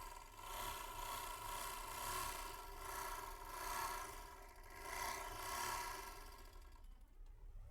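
Overlock machine running steadily, a whir with many even tones that swells and fades about every second and a half, then stops about seven seconds in. It runs with its missing clip part refitted and tightened, which makes the machine much quieter.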